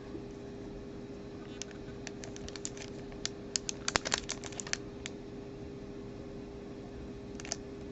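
Light clicks and taps from small items and packaging being handled by hand, a quick flurry of them in the middle. A faint steady hum runs underneath.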